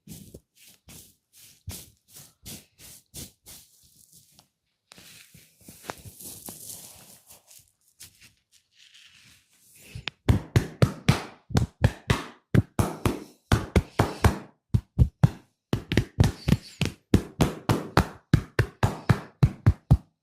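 Hands working the scalp in an oil head massage: soft taps and a brief rubbing swish, then about halfway through loud, sharp rhythmic slaps and chops on the head at about four a second.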